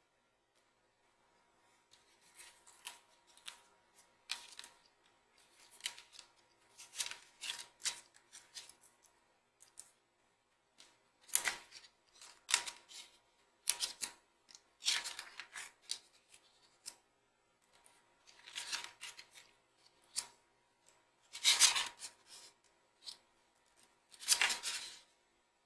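A deck of tarot oracle cards being shuffled by hand and dealt onto a wooden table: an uneven run of short papery swishes and slaps, louder in the second half.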